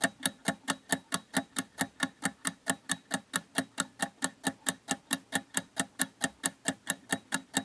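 Ticking clock sound effect counting down the answer time in a quiz, a steady run of sharp ticks at about four a second.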